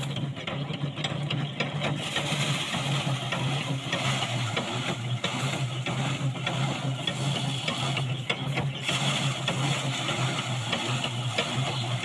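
Engine-driven rice thresher running steadily while paddy bundles are held against its spinning drum. There is a constant low hum, with a dense rattle and crackle of stalks and grain being beaten loose.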